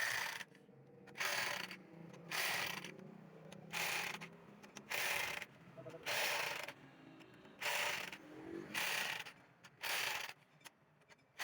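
Repeated rasping strokes of workshop hand work, about one stroke a second, each lasting about half a second.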